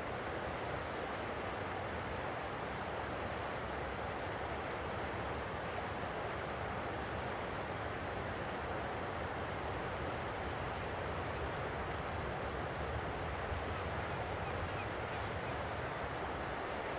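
Jet engines of a Boeing 737-700 (CFM56-7B turbofans) running at low taxi power as the airliner taxis and turns onto the runway: a steady rushing noise.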